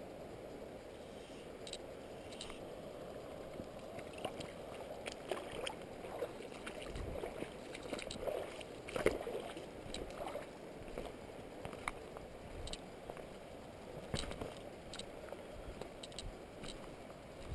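Footsteps of an angler wading at a river's edge: water sloshing around the boots and scattered small knocks on rock, with a few heavier steps, over a steady faint hiss.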